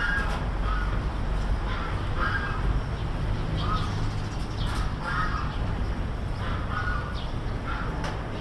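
A bird calling over and over, short calls coming about once a second, over a low steady rumble.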